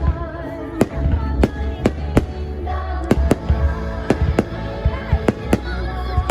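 Aerial fireworks bursting in a rapid, uneven string of sharp bangs, about two a second, over a low rumble, with music playing underneath.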